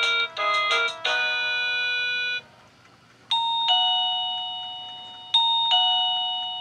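Satu Brown wireless doorbell receiver playing its electronic tones. A quick melody ends on a held chord. After a short pause, the two-note ding-dong chime sounds twice, high then low, each note ringing on and fading; it is the first tone in the list, reached again after cycling through all 36.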